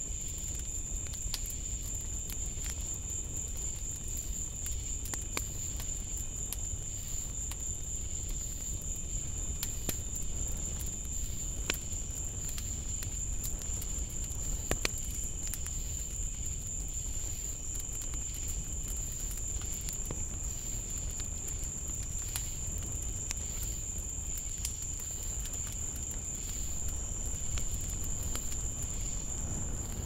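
Night insects singing in a steady, high-pitched, unbroken chorus, with scattered faint clicks and a low rumble underneath.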